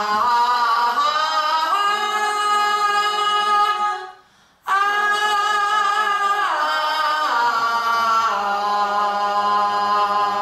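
A woman singing a long open 'ah' as a pansori vocal exercise, the held note stepping up in pitch near the start. About four seconds in there is a short break for breath, then a second long 'ah' that slides down in pitch partway through.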